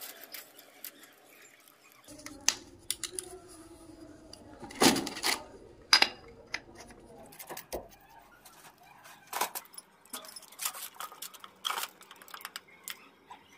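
Teflon (PTFE) thread-seal tape being wound around the threads of a brass pipe fitting, with soft rustles and irregular small clicks and clinks as the brass fittings are handled.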